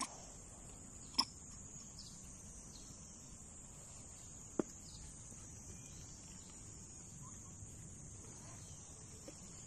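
Faint, steady high-pitched drone of insects, with two short sharp clicks, one about a second in and one just past the middle.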